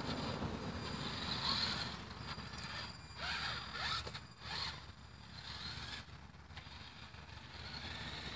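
WLtoys 10428-A electric RC rock crawler driving: motor and gears whir up in short bursts of throttle while the tyres scrape over asphalt and up onto a wooden step, getting quieter in the second half as it drives off.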